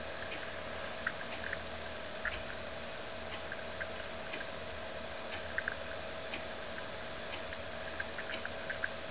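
Small irregular pops and ticks of bubbles fizzing in a test tube of silver crystals in 3% hydrogen peroxide, over a steady hum. The peroxide reacting with the silver is the sign of palladium plated in with the crystals.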